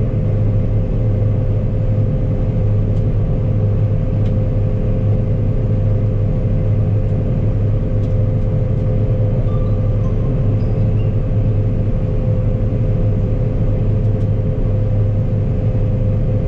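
Combine harvester running steadily while cutting wheat: a constant low drone with a steady whine above it.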